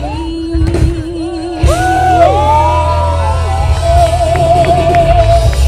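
A live band plays with a singer holding long, wavering notes over bass and drums. The music jumps louder about one and a half seconds in.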